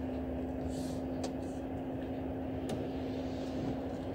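Volvo FH540 truck's diesel engine running steadily, heard from inside the cab while it creeps in stop-and-go traffic. It gives a constant low hum with one steady tone, and a couple of faint clicks come through.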